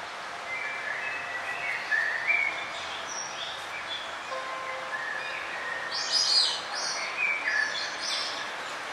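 Several songbirds chirping and whistling in short phrases over a steady background hiss, with a louder burst of high chirps about six seconds in.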